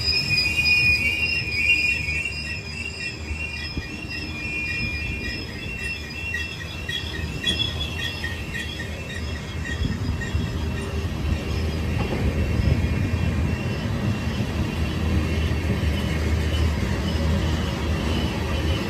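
BNSF train rolling past, its steel wheels squealing on the rail with a wavering high squeal that fades out over the first several seconds, over a steady low rumble of the cars that grows a little louder later on.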